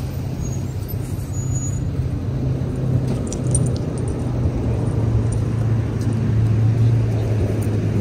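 Pickup truck engine running with a steady low hum as the truck pulls away.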